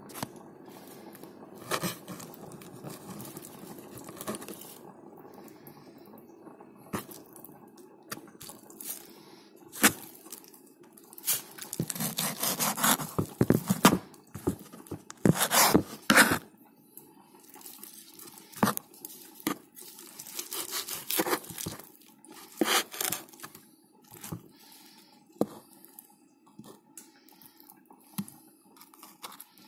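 Irregular scraping and rubbing strokes, loudest in a long stretch past the middle, over a faint steady hum.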